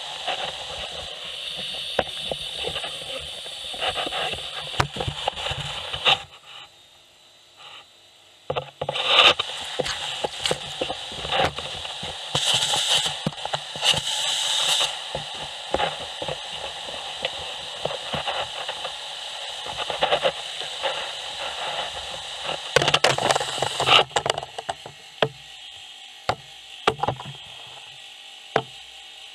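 Gutter vacuum hose suction hissing steadily at the top of a carbon pole, with debris and the pole clicking and knocking. The suction drops out briefly about six seconds in and eases in the last few seconds, leaving a few low knocks.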